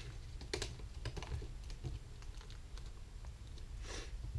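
Hands handling a shrink-wrapped cardboard product box, giving a few light taps and clicks, with a short breathy rush near the end.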